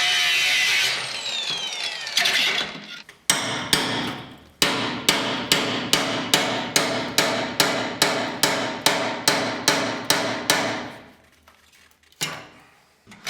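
An angle grinder runs for about a second and then spins down. After a short pause comes a fast, even series of ringing metal hammer blows on a chisel, about two and a half a second, more than a dozen of them, and one last blow near the end. The blows are aimed at a rusted-on muffler joint that is not yet coming free.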